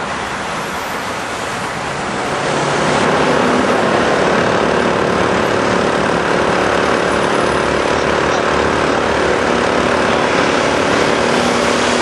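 Heavy engine running steadily over a wash of traffic noise, growing louder about two and a half seconds in and then holding.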